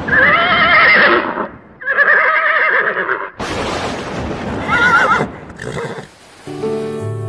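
A horse whinnying three times, in long wavering calls, over a loud rushing noise. Soft piano music begins near the end.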